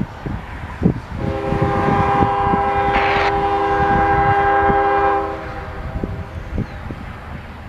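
Norfolk Southern diesel locomotive's multi-chime air horn sounding for a grade crossing. One blast ends just after the start, then a long blast of about four seconds begins a little over a second in. A low rumble runs underneath.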